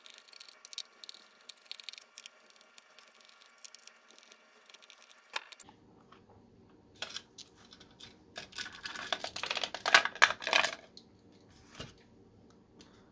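Small screwdriver backing screws out of a handheld oscilloscope's plastic case, with light ticks and scrapes. Then the case halves are pried apart by hand, a run of louder plastic clicks and rattles from about 7 to 11 seconds in.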